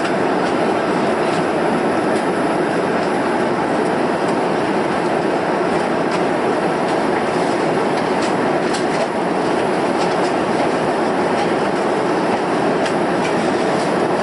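Steady rumbling cabin noise of an airliner, with faint clicks and rattles scattered through it.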